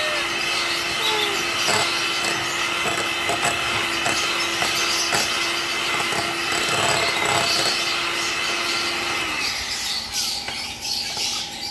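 Electric mixer beating dalgona coffee in a bowl: the motor runs at a steady pitch, with light knocks of the beaters against the bowl, and switches off about nine seconds in. The mixture is still being whipped toward a stiff foam.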